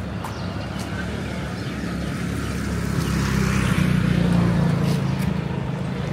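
A motor vehicle's engine passing by: a low hum that swells to its loudest about four seconds in and then fades.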